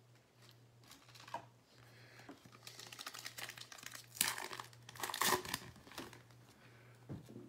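Foil wrapper of a basketball trading-card pack being torn open and crinkled in the hands, the crackling building up and loudest about four and five seconds in.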